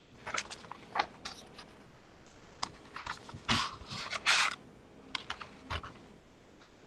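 Paper pages being turned and handled, heard over a video-call microphone as irregular rustles and clicks, with louder rustling about halfway through.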